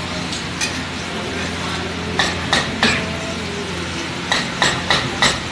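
Metal spatula scraping and clinking against a large flat griddle as a big batch of pav bhaji is stirred, the strikes coming in quick groups of two or three, over a steady sizzle and a low background hum.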